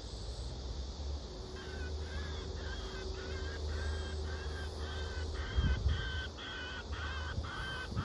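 An animal calling in a steady series of about two short pitched calls a second, growing louder and stopping suddenly at the end, over a low steady rumble.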